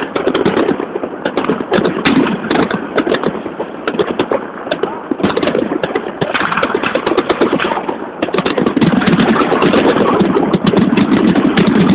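Many fireworks going off at once: a dense, irregular stream of bangs and crackles over the murmur of a crowd, growing louder and more continuous about eight seconds in.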